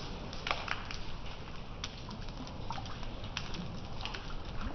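Rain falling on a flooded road and a street drain: a steady hiss with irregular drips and splashes of drops hitting the standing water.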